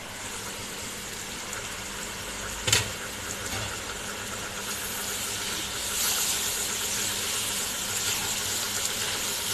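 Chicken curry boiling and sizzling in a pot on the stove, a steady hiss that grows louder about halfway through. A single sharp clink about three seconds in.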